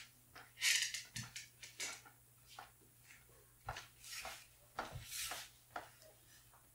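Large cardboard shipping box being carried in and set down on a wooden floor: scattered scuffs, knocks and cardboard rubbing, with a few dull thumps.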